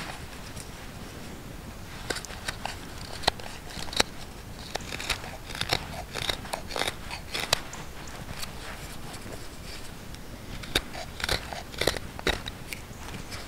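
A knife whittling a wooden spoon blank: short, crisp slicing cuts shaving off wood at an irregular pace, with a brief lull a little past the middle.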